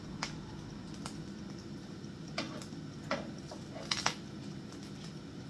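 A metal spatula and fork clicking and scraping against a frying pan while turning food: about six light, scattered clicks in the first four seconds, two of them close together near the end, over a low steady background hiss.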